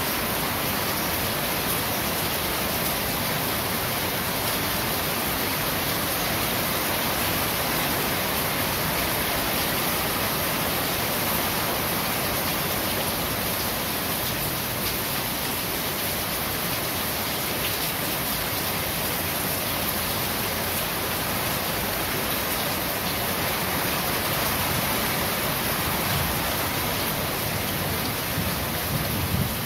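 Steady rain falling on a corrugated metal roof, an even hiss of many drops, with a couple of slightly louder taps near the end.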